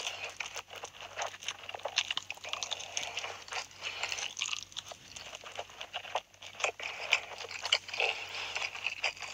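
Close-miked ASMR eating of spicy instant ramen noodles: wet slurping and chewing with many irregular small clicks and smacks.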